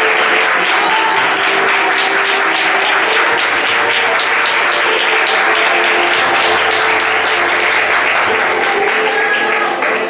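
A crowd clapping steadily over music with sustained instrument notes.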